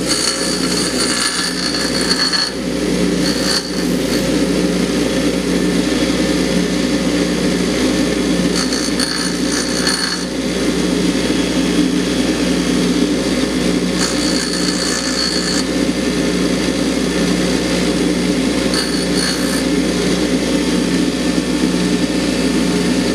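Bench grinder motor running steadily. Several short spells of high-pitched grinding come and go as a stock GM fuel injector's pintle cap is pressed against the wheel to grind through its friction weld.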